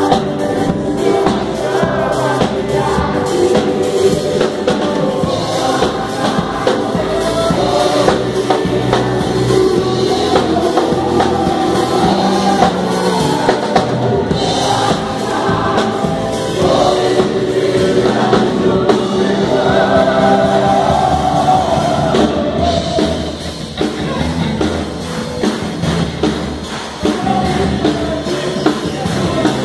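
Live gospel worship music: a band with a drum kit playing while many voices sing together.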